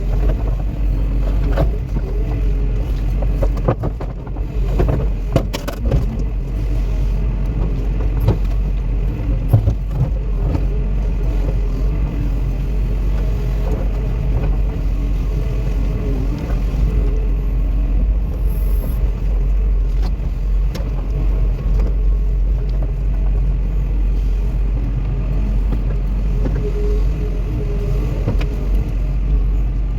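Caterpillar 316E excavator's diesel engine running steadily, with a cluster of knocks and clanks in the first few seconds.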